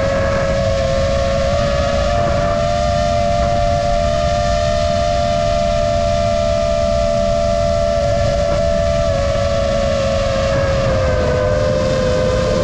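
Brushless motors and propellers of a Nazgul F5D five-inch FPV quadcopter whining steadily in slow cruise, picked up by the GoPro mounted on it, with a rough low rumble underneath. A second, slightly higher tone runs alongside for several seconds in the middle, and the pitch dips a little near the end.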